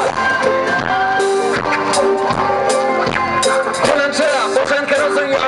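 Live band music played loud through a PA, a dense steady mix with sliding, bending melodic lines over it, heard from the audience.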